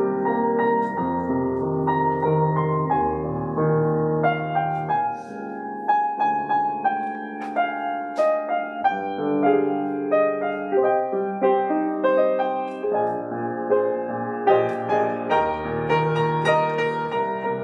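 Slow instrumental piano music, held chords moving over a low bass line.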